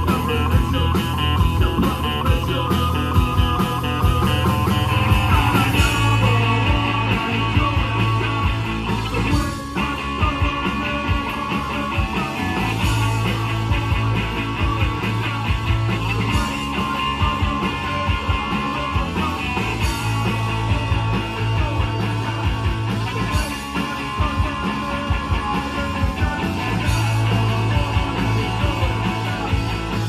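Live rock band playing: electric guitar, bass guitar and drum kit, with a man singing into the microphone.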